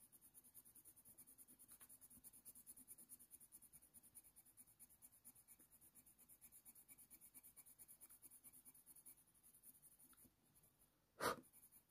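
Faber-Castell Polychromos coloured pencil scratching faintly on hot-press watercolour paper in quick short shading strokes, about five a second, stopping about ten seconds in. A single short click-like sound comes near the end.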